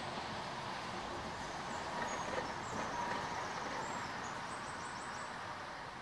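Steady hum of distant road traffic, swelling a little a couple of seconds in, with faint high bird chirps over it from about two seconds in.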